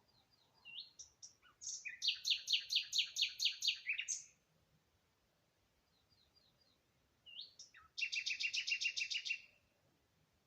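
A songbird singing twice. Each phrase starts with a few short, thin upslurred notes and breaks into a fast, loud trill of repeated notes lasting about two seconds, with a pause of about three seconds between the two phrases.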